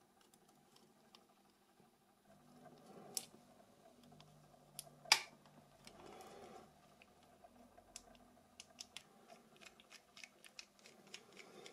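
Light clicks and taps of a Nokia 6300's plastic and metal parts being handled and fitted together by hand during reassembly. The loudest, sharpest click comes about five seconds in, and a quick run of small ticks comes near the end.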